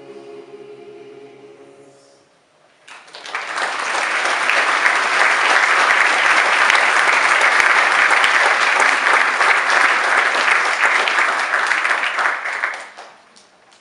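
A held musical chord fades out, then an audience applauds for about ten seconds, dying away near the end.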